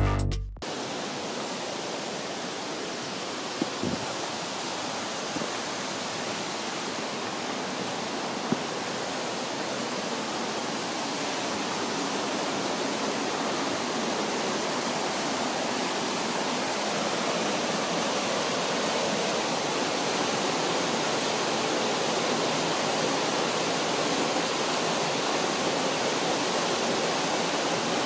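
Steady rushing of Syphon Falls, a waterfall, gradually growing a little louder, with two brief ticks about four and eight seconds in.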